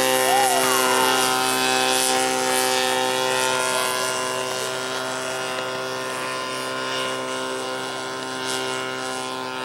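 Model airplane's 36cc engine running at a steady high pitch in flight, slowly fading as the plane moves away.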